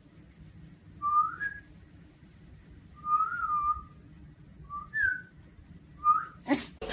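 A person whistling a few short, mostly rising notes with pauses between; the longer one about three seconds in rises and falls. Just before the end comes a short rising sweep.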